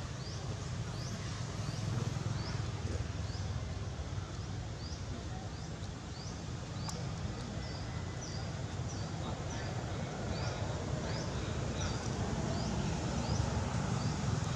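A small animal chirping over and over, short high rising chirps about twice a second, over a steady low rumble.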